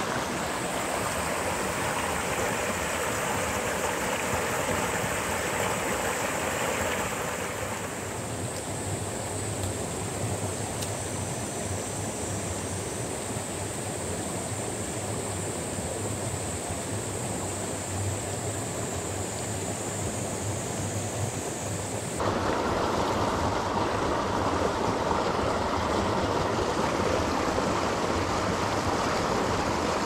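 Shallow mountain headwater stream running over rocks, a steady rush of water whose character shifts abruptly about seven seconds in and again about twenty-two seconds in.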